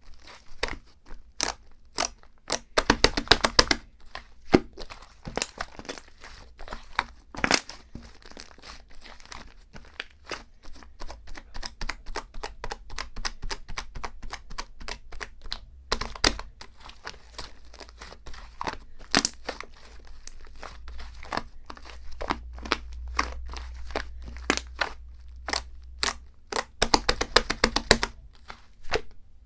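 Paper or plastic packaging handled close to the microphone: crinkling and crackling, with two quick runs of tearing, about three seconds in and again near the end.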